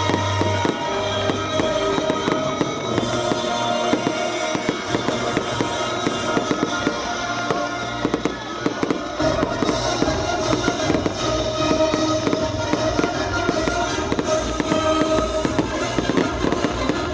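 Aerial fireworks bursting in rapid crackling volleys over loud music played along with the show.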